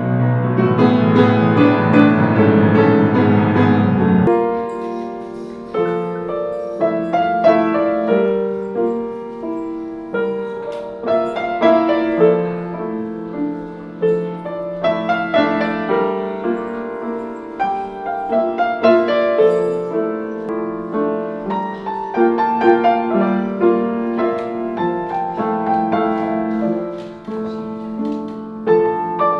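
Piano music: a slow melody over chords. About four seconds in, a fuller layer with deep bass stops, leaving the piano on its own.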